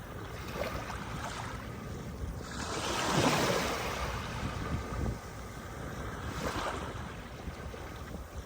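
Small sea waves breaking and washing up onto a sandy beach, with a strong surge about three seconds in and a weaker one later, over wind buffeting the microphone.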